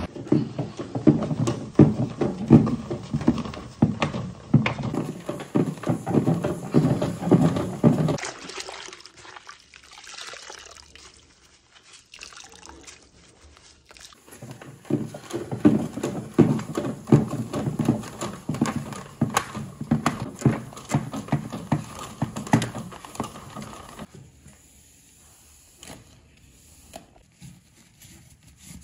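A microfiber cloth being dunked, sloshed and squeezed in a bucket of soapy water: rapid wet sloshing and squishing in two long bouts, with quieter stretches of lighter handling between them and near the end.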